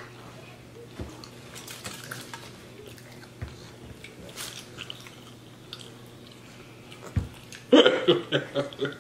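Quiet eating sounds at a table: chewing, with small clicks and a few soft thumps. Near the end a high-pitched voice breaks in loudly with a quick run of short syllables.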